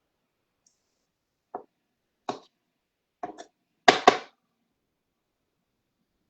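A kitchen knife cutting seeds out of a soft vegetable and knocking on a cutting board: about six scattered knocks, the loudest two close together about four seconds in.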